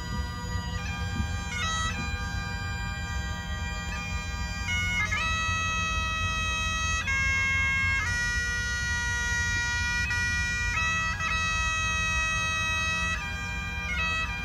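Bagpipes playing a slow tune: a steady drone under the chanter's melody, which moves between notes held a second or more each.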